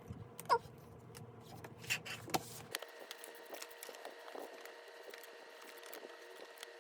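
Scattered small clicks, taps and a short squeak of packaging and album items being handled. A low background hum cuts off abruptly a little under three seconds in, leaving faint light ticking.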